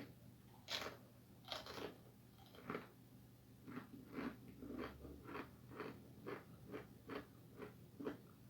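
A man biting into and chewing the crunchy Paqui One Chip Challenge tortilla chip. A few sharp crunches as he bites, then steady chewing at about two chews a second.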